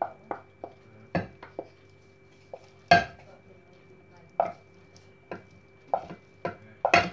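Irregular clinks and knocks of dishes and cutlery, about a dozen sharp strikes. The loudest come about three seconds in and near the end.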